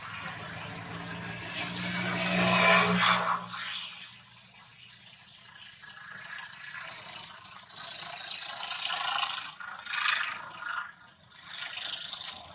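Dry leaf litter rustling and crackling in irregular bursts as monkeys move and forage over it. It is loudest about two to three seconds in and again around ten seconds. A low steady hum sits under the first few seconds.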